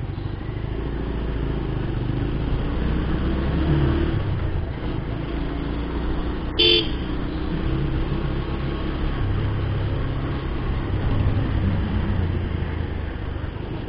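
Bajaj Pulsar 150's single-cylinder engine running steadily at low town speed, its pitch shifting a little with the throttle, over road noise. A vehicle horn toots once, briefly, about six and a half seconds in.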